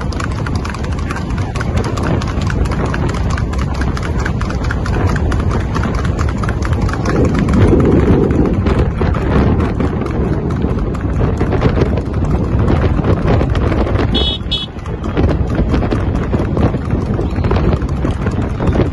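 Hooves of two harness horses clattering on tarmac at speed, a rapid, continuous beat as they pull sulkies, over the steady road and running noise of the car keeping pace alongside.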